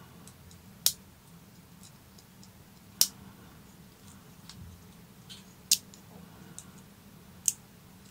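Homemade mini revolver's steel action being worked by hand: four sharp clicks spaced about two to three seconds apart, with fainter ticks between them, as the hammer is cocked and the cylinder indexes.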